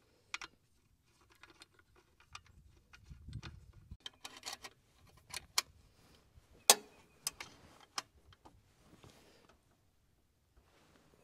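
Irregular light clicks and metallic clinks of tools and parts being handled, with one sharper click a little past the middle.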